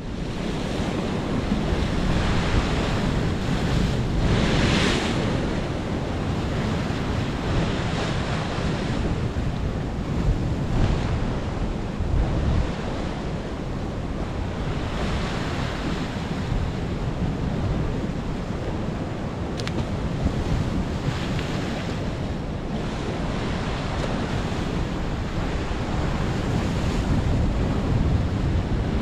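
Sea swell surging and breaking on the shore, with wind rumbling on the microphone. The wash rises and falls in surges, loudest about four to five seconds in.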